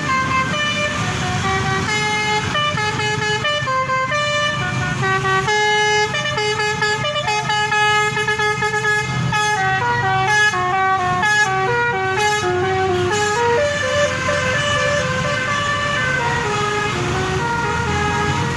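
Telolet basuri bus horn playing a tune: a continuous run of short, stepped pitched notes going up and down, over the low, steady running of the bus engine.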